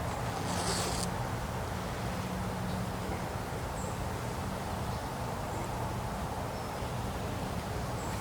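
Honey bee swarm buzzing, a steady low hum, with a brief rustle about a second in.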